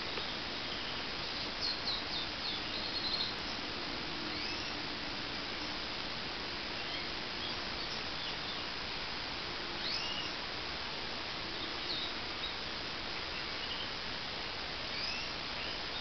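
Goldfinch × Irish fancy canary mule calling in short, high chirps: a quick cluster of several in the first few seconds, then single chirps every second or two, over a steady hiss.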